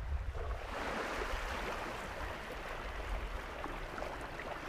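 Shallow water washing and lapping at a sandy shoreline, a steady rushing wash with a low rumble underneath.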